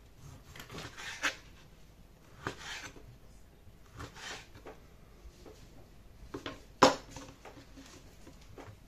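Kitchen knife dicing veal on a wooden cutting board: scattered slicing strokes with the blade knocking on the board, and one sharper, louder knock about seven seconds in.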